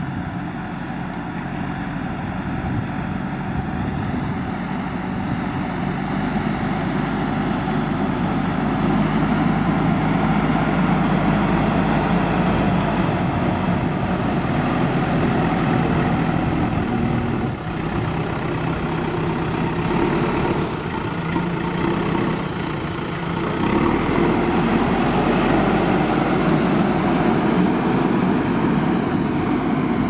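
JCB 3DX backhoe loader's diesel engine running steadily under load while the front loader bucket pushes and levels soil; it grows louder about a quarter of the way in and again later on, with a brief dip a bit past halfway.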